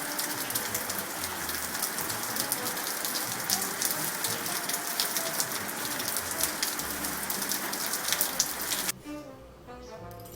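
Heavy rain falling on a hard surface, a dense hiss full of sharp drop hits, cutting off suddenly about nine seconds in.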